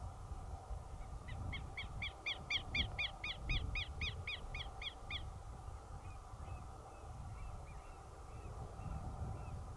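A bird calling a fast run of repeated pitched notes, about four a second, for some four seconds, then fainter scattered notes, over a low wind rumble.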